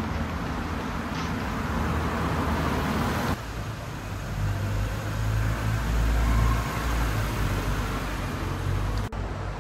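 Toyota Crown Royal (S180 "Zero Crown") 3.0-litre V6 with an aftermarket Three Cats muffler, rolling slowly past in a concrete parking garage. Its low exhaust rumble swells as the car draws level and passes, loudest about six seconds in.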